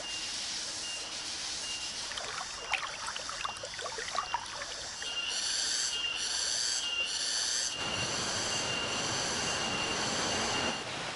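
Tropical forest insects calling: a high-pitched tone repeating about once a second, joined a little past halfway by three loud pulsing buzzes. Footsteps crackle on dry leaf litter for a couple of seconds, and near the end a steady rushing hiss comes in.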